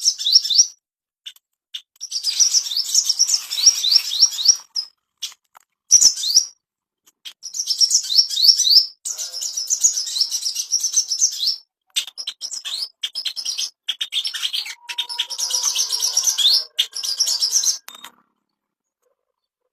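Sogon bird singing: phrases of rapid, high, downward-slurred chirps in bursts of one to three seconds, separated by short pauses. The song stops about two seconds before the end.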